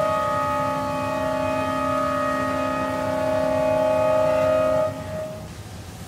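One long blast of a multi-note horn: several steady tones sounding together as a chord for about five seconds, then cutting off, over a low steady rumble.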